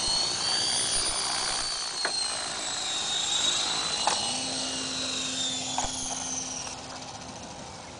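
Align T-Rex 450 electric RC helicopter hovering low, its motor and gear whine wavering up and down in pitch as the throttle is worked, with the main rotor at a flat pitch and a low head speed. A few light clicks, and the whine eases off near the end.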